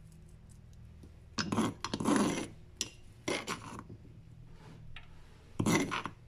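Chopped garlic being scraped off a kitchen utensil onto beef in an air fryer basket: four short scraping bursts with a few light clicks between them.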